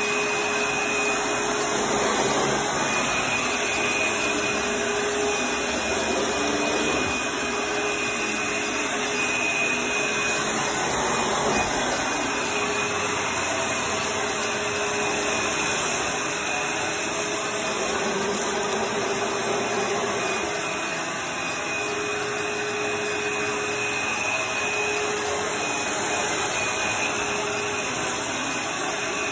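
Dirt Devil upright vacuum cleaner running continuously as it is pushed over carpet. It makes a steady rush of air with a high motor whine on top.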